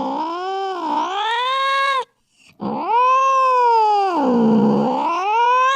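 Angry domestic cat yowling: one long, wavering yowl that dips and rises in pitch breaks off about two seconds in, then after a short pause a second long yowl swoops low and climbs back up.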